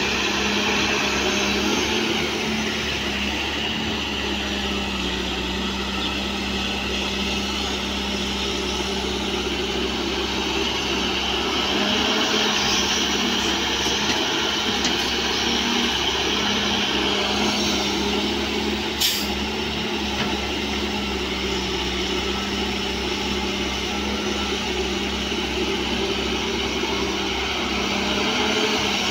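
Diesel engines of a John Deere 595D wheeled excavator and a Nissan dump truck running steadily while the excavator swings loads of dirt into the truck bed. A single sharp click about two-thirds of the way through.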